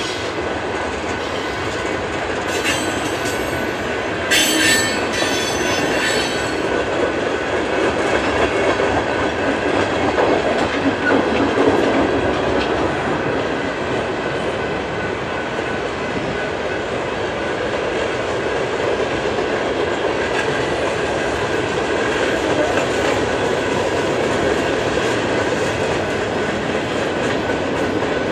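Freight cars of a passing train rolling by, a steady dense rolling noise of steel wheels on rail. Two short high squeals from the running gear come about three and five seconds in.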